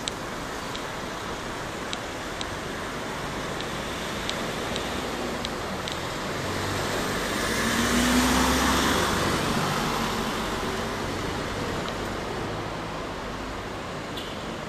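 A van and a small box truck driving past close by. Their engine and tyre noise swells to a peak about eight seconds in and then fades back into steady city traffic noise.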